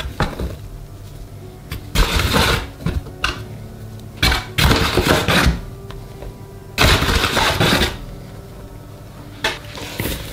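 Metal spoon scooping flour from a container and tipping it onto grated potatoes in a bowl, in about four separate scrapes and spills with sharp clicks where the spoon knocks against the container.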